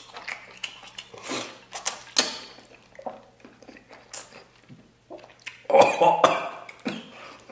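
Mouth sounds of eating braised pig intestine: slurping and chewing, then about six seconds in the loudest part, a burst of sharp breaths out and coughs from the chili heat.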